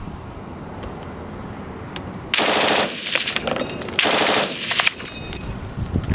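M249 SAW belt-fed 5.56 mm light machine gun firing two short bursts of automatic fire, each about half a second long, the first about two seconds in and the second a second and a half later.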